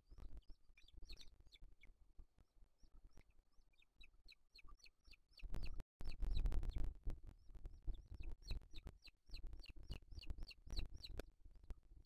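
Booted eagles calling at the nest: a rapid series of short, high chirps, each falling in pitch, a few a second. Low thumps and rumbles run under the calls and get louder after a brief dropout of the sound about halfway through.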